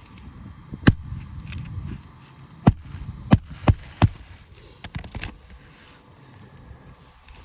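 Sharp knocks of a hand tool working on a shingle roof: one about a second in, then four in quick succession, with wind rumbling on the microphone.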